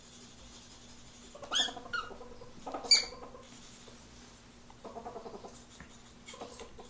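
Ferrets mating: three short, sharp, high squeals about a second and a half to three seconds in, the last the loudest, then short bursts of quick, pulsed chattering near the end.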